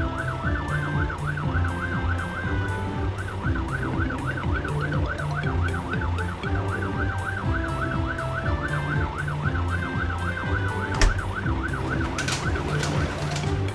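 Cartoon fire engine siren going continuously as a fast up-and-down yelp, about three or four swings a second, over a low pulsing hum. A single sharp knock comes near the end.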